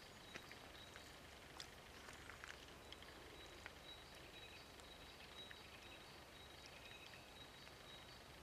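Near silence: faint forest ambience with a few soft ticks in the first four seconds and a faint steady high whine.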